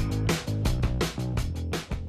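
Background music with a steady beat: rock-style guitar and drums.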